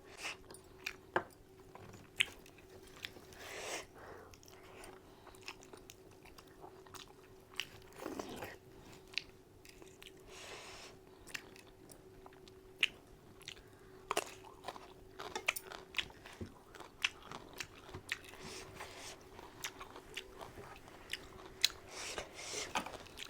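Close-up sounds of a person chewing and biting spicy mutton curry, with many irregular sharp crunches and clicks and a few longer, noisier stretches.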